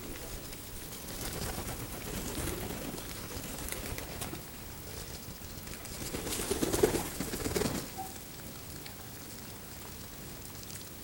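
A flock of feral pigeons cooing, with a louder bout of cooing about two-thirds of the way through, and light scattered tapping as they peck at seed on the ledge.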